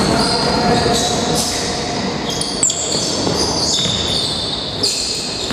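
Basketball shoes squeaking on a hardwood gym floor as players run and cut, many short high squeaks one after another, with the odd knock of the ball on the floor.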